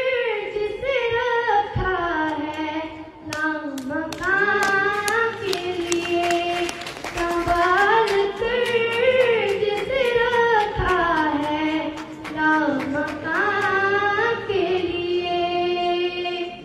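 A solo voice singing a naat unaccompanied, the melody gliding and holding long notes. Hand claps keep time through the middle.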